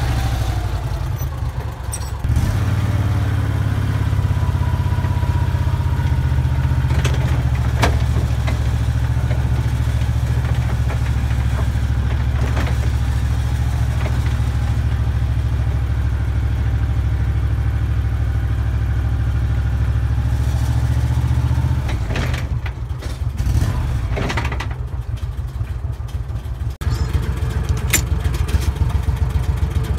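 Utility vehicle's engine running steadily as it drives over a farm track, with occasional knocks and rattles from the load in the bed. The drone breaks up about two-thirds of the way through, then goes on with a rougher, pulsing sound near the end.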